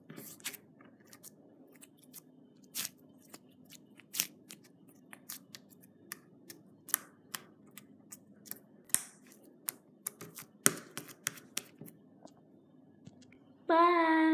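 Doughy slime made from Play-Doh, white glue and borax being pressed and pulled with fingers, giving irregular sticky clicks and pops. Near the end a voice holds one long sung note.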